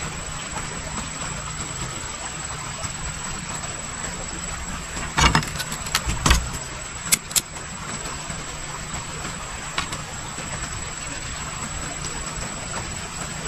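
Steady outdoor background with a low hum, broken about halfway through by a few knocks and two sharp clicks as fishing line, hook and spool are handled on a bamboo platform.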